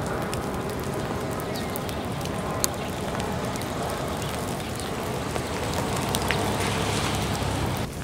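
Steady rain with scattered raindrop ticks.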